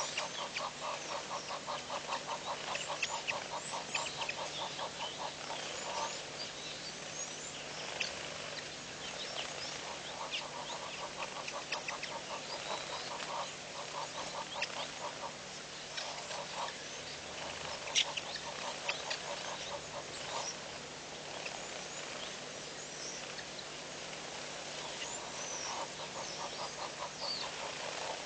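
Wild birds calling: a fast, chattering run of pulses that comes and goes in bouts, with many short, high chirps scattered through it.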